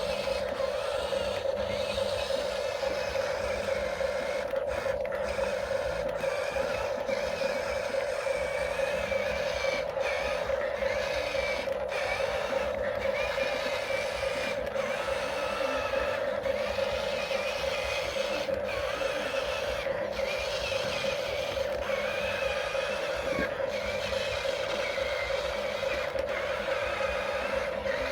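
Electric drive motors and gearboxes of a Huina radio-controlled toy excavator whirring as it works, a steady whine with wavering higher gear noise over it.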